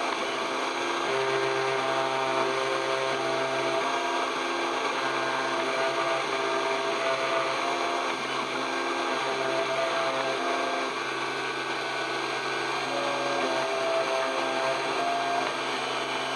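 CNC milling machine's spindle running steadily as a V-shaped engraving bit cuts isolation traces into a copper-clad circuit board. Humming tones change pitch in steps every few seconds as the machine moves the bit.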